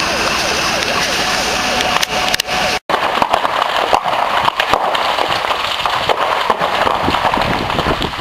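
A steady engine running with voices in the background, then, after a cut about three seconds in, irregular crackling and popping from a large building fire with its roof ablaze.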